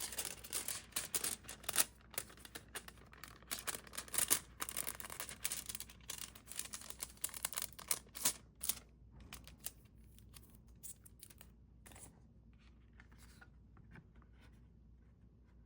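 Rustling and crinkling of paper and card album inserts being handled, busy for the first eight or nine seconds, with a few lighter rustles until about twelve seconds in, then quiet room tone.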